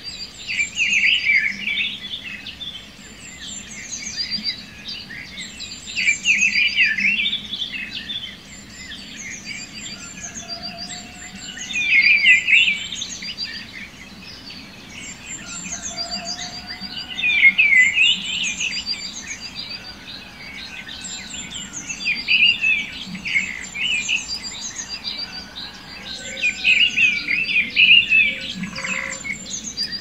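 Songbirds singing: a bright warbling song phrase comes back about every five seconds over a steady background of thin, high chirps from other birds.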